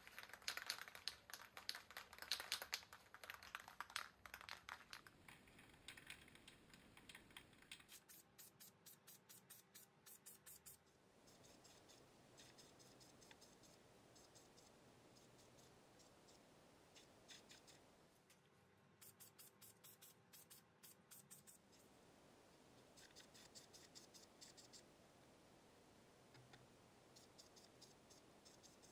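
Aerosol can of grey primer shaken hard, its mixing ball rattling in quick clicks for about four seconds. After that only fainter bursts of clicking and a low hiss are heard.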